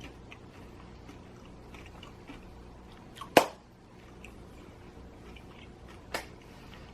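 Quiet close-up chewing of crispy pizza, with small wet mouth clicks, one sharp click about three and a half seconds in and a smaller one about six seconds in.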